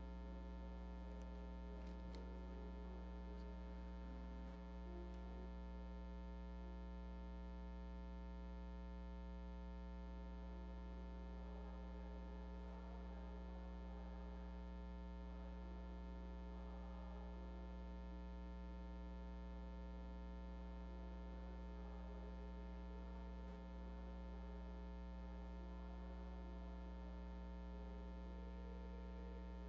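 Steady electrical mains hum, a low buzz with many evenly spaced overtones, with faint indistinct sounds beneath it in the second half.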